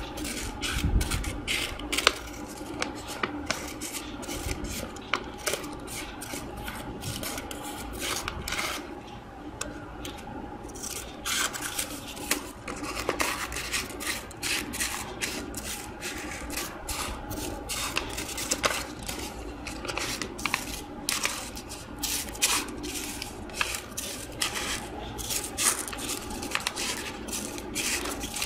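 Scissors snipping and scraping through a sheet of paper in a continuous spiral cut: many short, irregular snips, with the paper rustling as it is turned.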